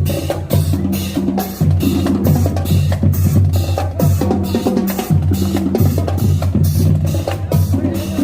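Dance music with a steady drum beat of crisp hits about four a second over a deep bass line that holds each note for a second or two.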